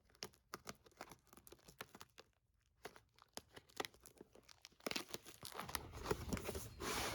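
Cardboard product packaging being handled and opened: scattered light clicks and crackles, then from about five seconds in a denser tearing, scraping noise as the box is worked open.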